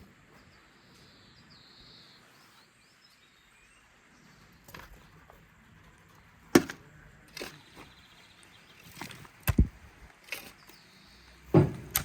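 Scattered sharp knocks and taps from handling during food preparation, about seven over the second half, over faint birdsong.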